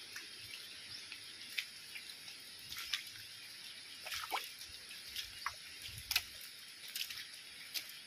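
Water dripping after heavy rain: scattered sharp drips and ticks over a steady hiss.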